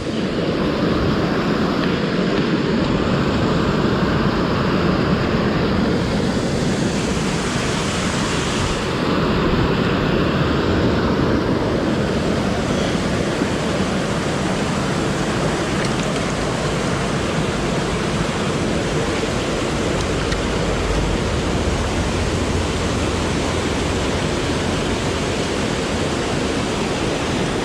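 Mountain creek water rushing over a small waterfall, a steady, loud wash of noise close to the microphone.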